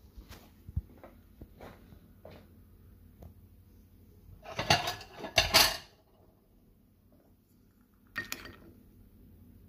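Spoon clinking against a ceramic bowl of Honey Cheerios: light taps in the first few seconds, a louder spell of clatter about halfway, and another short one near the end.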